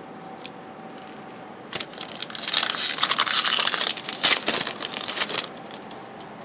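Foil wrapper of a trading-card pack crinkling and tearing as it is handled, a dense crackle for about four seconds starting near the middle.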